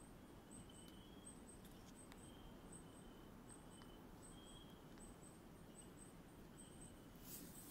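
Faint nighttime forest chorus of calling insects: short high chirps, often in pairs, repeating about once a second, with longer, lower single notes in between. A brief rustle comes near the end.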